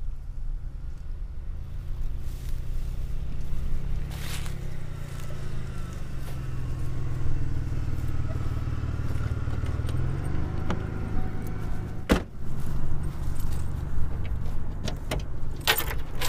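A car drives up over grass and stops, its engine running with a low rumble that shifts in pitch as it approaches. A sharp click comes about twelve seconds in, and a few more clicks and rattles near the end as the trunk is opened.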